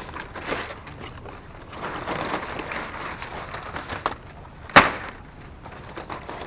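Rustling and swishing of long palm leaflets being sorted and stacked by hand, with one sharp crack a little before the end.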